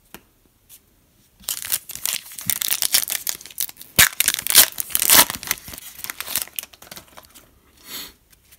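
Foil wrapper of a trading-card pack being torn open and crinkled by hand: a dense crackling run starting about a second and a half in, with one sharp snap about four seconds in, easing off near seven seconds, then a shorter rustle near the end.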